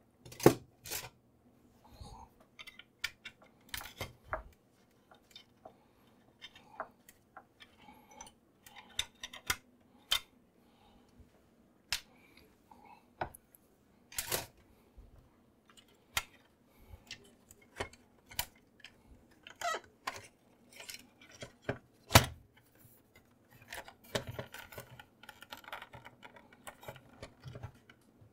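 Irregular small clicks, taps and knocks from handling the opened HP ThinkJet printer's plastic case and mechanism, with a denser stretch of rubbing and rattling near the end.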